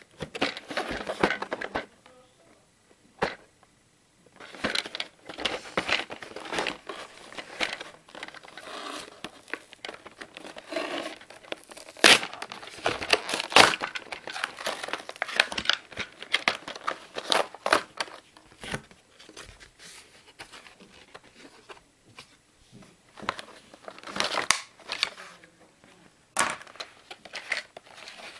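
Clear plastic blister packaging and its cardboard backing crinkling, crackling and tearing as they are pulled open by hand, in irregular bursts with a couple of sharp plastic snaps about halfway through.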